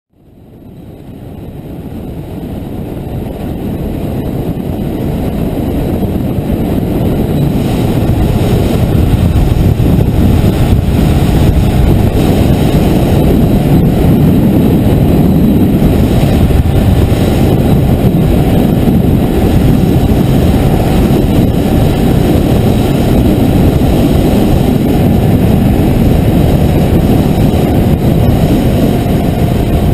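Motorcycle in motion on the road, heard from a camera mounted above its handlebars: engine running and air rushing past, a dense low rumble that fades in over the first several seconds and then holds steady.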